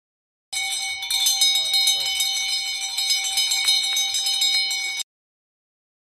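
A metal spoon beaten rapidly against a steel plate, the metal ringing under dense, quick strikes. It starts suddenly about half a second in and cuts off abruptly about five seconds in.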